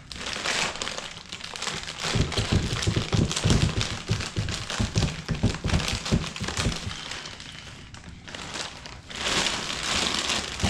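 A plastic bag crinkling and rustling as it is cut open and handled, with a run of irregular knocks and clicks in the middle.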